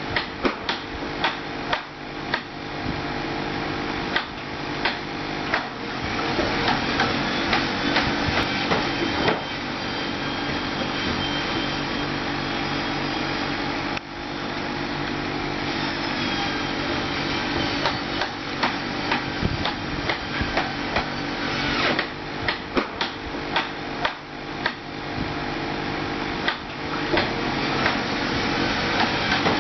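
Digging tractor's engine running steadily, with frequent sharp metallic clanks and knocks from the working machine. The sound breaks off briefly about fourteen seconds in, then carries on.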